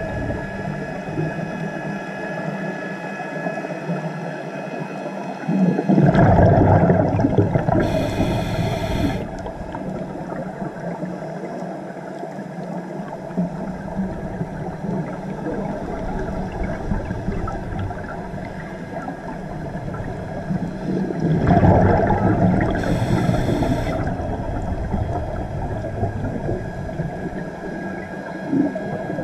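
Scuba diver breathing through a regulator underwater. Two loud rumbles of exhaled bubbles come about 6 s and 21 s in, each followed by a short hiss of inhalation through the regulator, over a steady underwater background.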